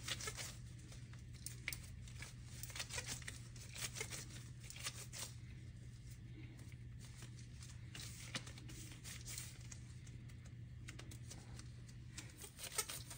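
Hands in black disposable gloves pulling pieces off soft flour dough and working them into balls in a stainless steel bowl. The sound is faint, with irregular sticky tearing and small crackles over a steady low hum.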